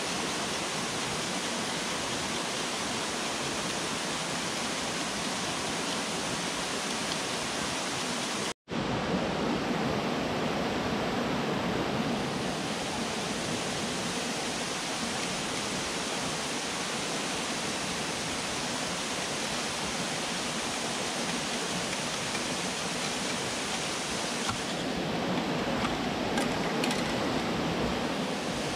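Steady rush of flowing river water, an even noise with no rhythm. It cuts out for an instant about nine seconds in.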